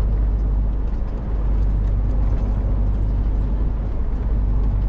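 Heavy goods lorry cruising on a motorway, heard inside its cab: a steady low engine drone with road and tyre noise.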